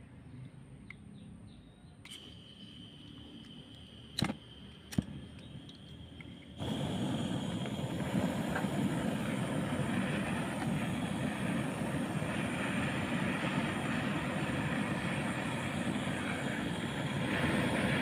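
Handheld gas torch: two sharp clicks about four and five seconds in, then it lights with a sudden, steady hiss of the flame, played on a sickle's steel tang to heat it red-hot.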